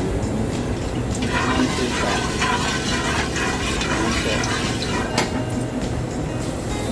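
Cooking oil being poured into a hot wok, a steady pouring sound from about a second in that stops with a short knock about five seconds in.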